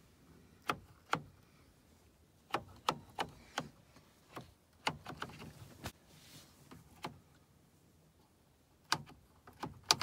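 About a dozen sharp clicks, spaced irregularly, from a newly fitted headlight switch in a 2003–2006 Chevrolet Silverado being worked through its positions.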